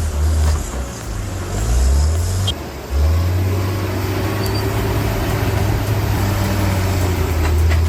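Heavy earthmoving machine's diesel engine running, a deep steady drone that dips briefly twice in the first three seconds; the rest of the sound changes abruptly about two and a half seconds in.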